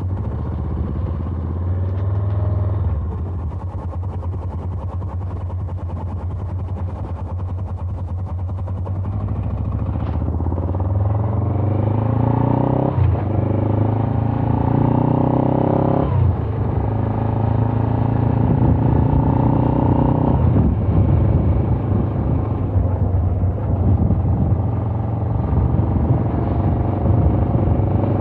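Suzuki GS500F's parallel-twin engine on its stock exhaust, ridden along at steady revs, then accelerating hard through the gears: the pitch climbs and drops back at each upshift, three times in the second half.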